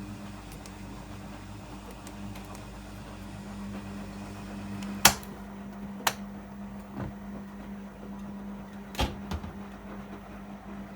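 Miele MedicWash W2585 washing machine running with a steady hum, broken by a few sharp mechanical clicks, the loudest about five seconds in and more about six, seven and nine seconds in.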